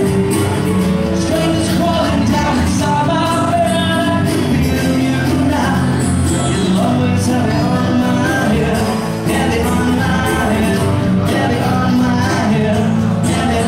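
Live acoustic rock band playing: strummed acoustic guitars, keyboard and bass, with a man singing the lead vocal.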